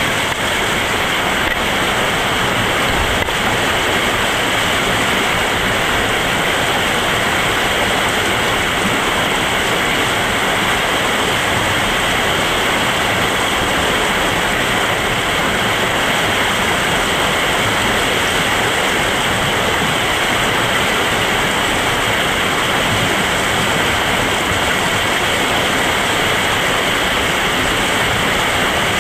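Whitewater rapid rushing steadily close by, a constant loud wash of water.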